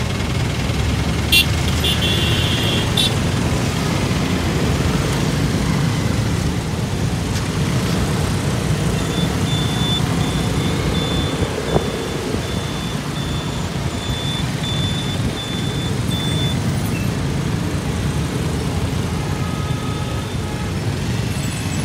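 Motorcycle ride in dense city traffic: a steady rumble of engines and road noise. A brief high tone sounds about a second in, and a high beep repeats about twice a second for several seconds midway.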